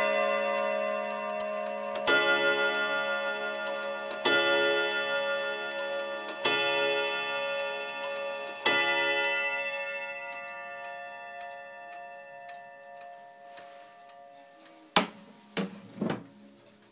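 The gong rods of a Jura wall clock are struck by its hammers four times, about two seconds apart, striking the hour. Each stroke rings on and fades slowly, and the ringing of the chime melody before it is still dying away at the start. A few short knocks come near the end.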